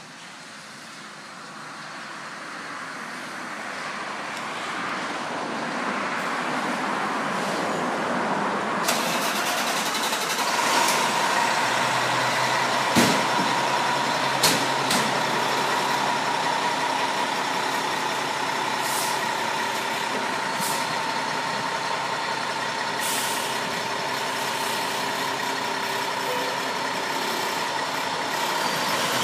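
Diesel engine of a 2007 Spartan Gladiator fire engine running in the station bay, growing louder over the first several seconds, with a steady whine from about ten seconds in. Two sharp knocks come about midway, and then several short hisses of compressed air from the air brakes.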